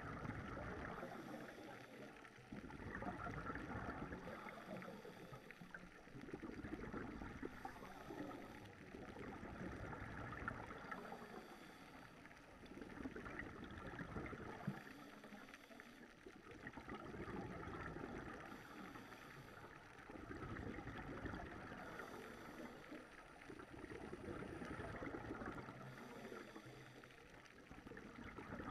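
Scuba breathing heard underwater through a scuba regulator: slow, regular breaths with exhaled bubbles gurgling, swelling and fading about every three to four seconds.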